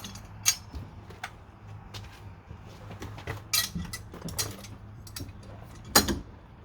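Small metal screws and fittings being handled: a scatter of light clinks and sharp clicks, with the loudest knock about six seconds in.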